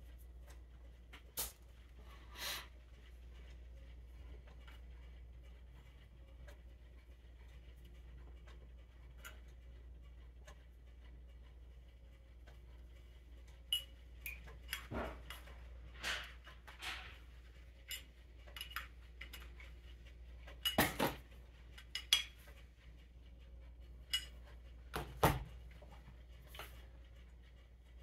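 Small metal hand tools and carburetor parts clicking and clinking as a Ford 8N tractor carburetor is reassembled on a desk. The light taps come twice near the start, then in a scattered run through the second half, over a faint steady hum.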